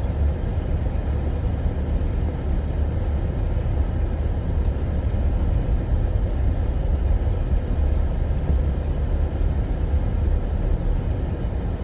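Steady low rumble with a noisy hiss above it.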